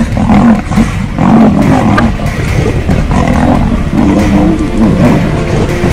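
A tiger and a lion growling and snarling as they fight: low, rough growls that run on without a break, rising and falling in pitch.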